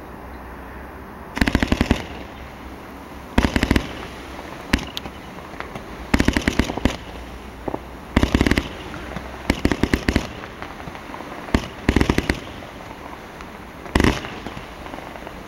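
A 49-shot silver strobe horsetail firework cake firing in volleys: bursts of rapid pops, each about half a second long, come every one to two seconds, with a few single pops between them.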